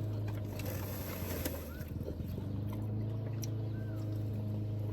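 A steady low mechanical hum, with faint scattered clicks and small noises over it.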